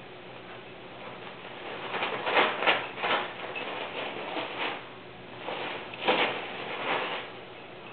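A small dog mouthing and carrying a wrapped gift: several short bursts of rustling and crinkling, a cluster about two to three seconds in and another around six to seven seconds.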